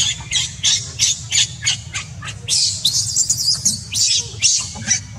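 Newborn baby macaque screaming in short, high-pitched cries about three times a second, with one longer cry about halfway through, while its mother pulls it across the ground and leaves it lying there.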